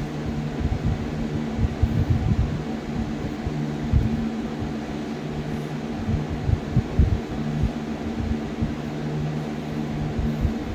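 A steady mechanical hum with several steady low tones, like a fan or air-conditioning unit running, with irregular low bumps throughout.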